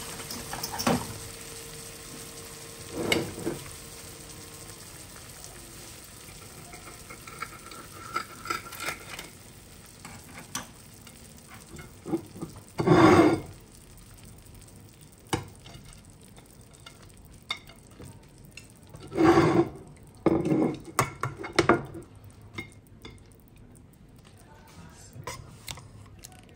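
Steak frying in a pan, a steady quiet sizzle, with scattered clicks and a few louder clatters of utensils against the pan. The sizzle fades near the end.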